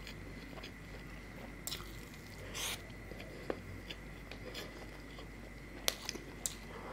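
A person chewing soft food close to the microphone, quiet and soft, with a few sharp mouth clicks and a short wet smack about two and a half seconds in.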